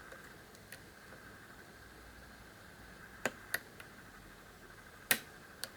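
Small metallic clicks of a hook pick working the pin stacks of a Euro cylinder lock under tension, a few sparse ticks with the loudest near the end. They sound over a faint hiss and a faint steady tone.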